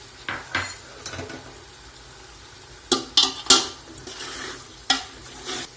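Kitchen utensils knocking and clinking against a cooking pot, about eight sharp strikes at uneven intervals, the loudest a quick cluster of three about three seconds in.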